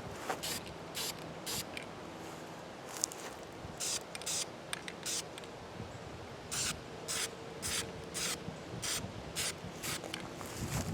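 Aerosol can of camouflage brown spray paint being sprayed in many short squirts of hiss, each about a quarter second, coming in quick runs with a pause of about two seconds early on.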